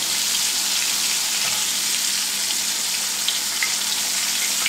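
Breaded chicken bites shallow-frying in about half an inch of oil over medium to medium-low heat: a steady sizzle, its hiss mostly high in pitch.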